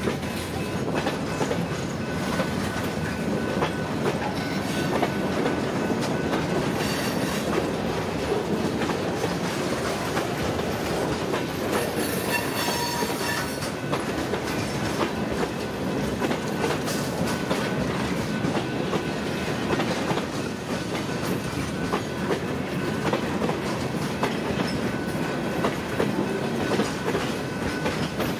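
Railroad cars rolling past, their wheels clicking steadily over rail joints, with a brief high squeal a little under halfway through.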